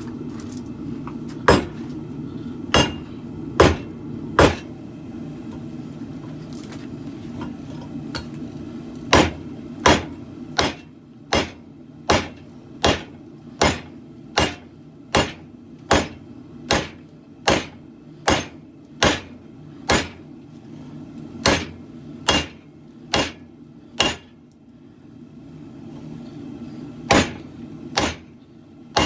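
Hand hammer striking hot steel on an anvil while forging a khopesh blade: single sharp blows about one every 0.8 seconds, in runs of four to eleven with short pauses. A steady low rush from the propane forge runs underneath.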